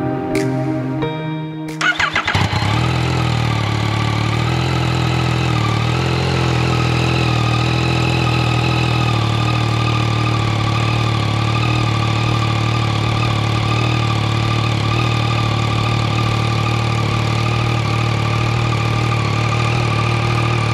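Yamaha MT-09 SP's three-cylinder engine starting about two seconds in and then idling steadily through an Akrapovic exhaust fitted with its full-length db-killer, not pushed all the way in.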